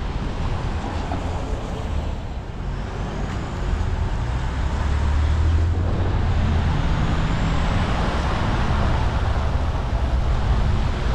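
Car driving on a rain-wet road: steady tyre and road noise over a low engine hum, getting louder about four seconds in.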